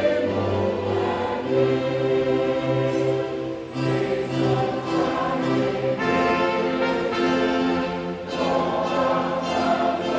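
Church choir singing with instrumental accompaniment, long held notes over a steady bass line.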